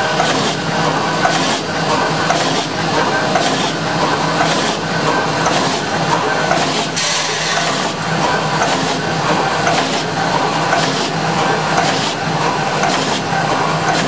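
OMAS clamp-making machine running, forming metal strip into gas-pipe clamps: a steady mechanical clatter with regular knocks repeating at an even pace.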